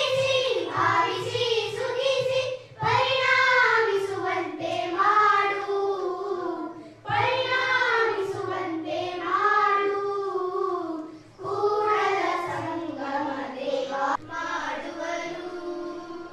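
A group of young schoolgirls singing a song together into a microphone, in sung phrases a few seconds long with short breaks between them.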